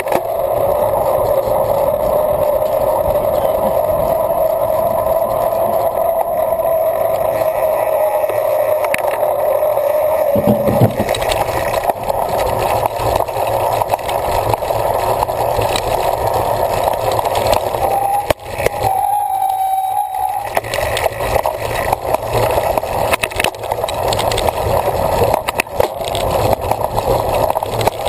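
Cyclocross bike being raced over rough ground: a steady rushing noise of tyres and moving air, with the bike rattling over bumps.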